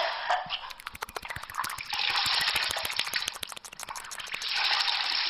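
Steady crackling clicks with two long bursts of hiss, the second starting near the end.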